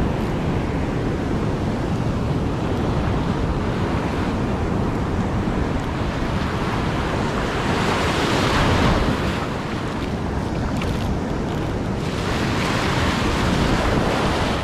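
Ocean surf breaking and washing around in the shallows, with wind rumbling on the microphone. The wash swells louder about eight seconds in and again near the end.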